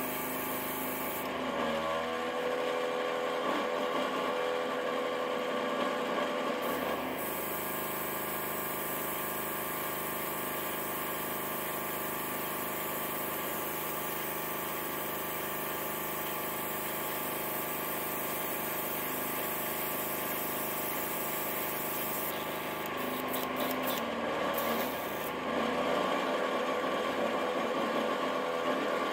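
A small airbrush compressor running with a steady hum, while the airbrush hisses as it sprays paint in two stretches, about two to seven seconds in and again over the last few seconds.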